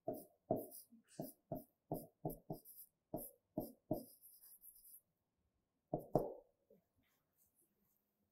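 Someone writing by hand: a run of sharp taps and short scratchy strokes, about a dozen in the first four seconds, then two more taps a little after six seconds.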